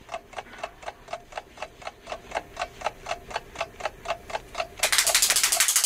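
A hand-held clapper toy clacking steadily, about four times a second. About a second before the end, much louder and faster hand clapping cuts in, at about twelve claps a second.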